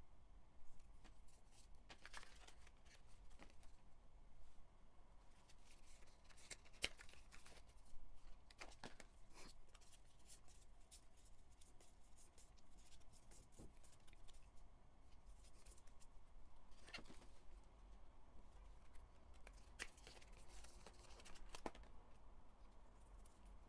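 Small photocards being flipped through and handled, with soft scattered clicks and paper rustles of cards sliding over one another and light cardboard boxes being touched.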